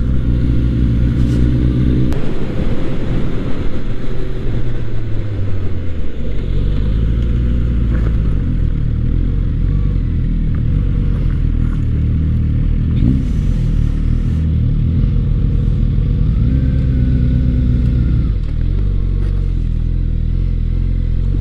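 Suzuki GSX-S1000's inline-four engine running as the motorcycle is ridden slowly, heard from the bike. Its note steps up and down in pitch several times.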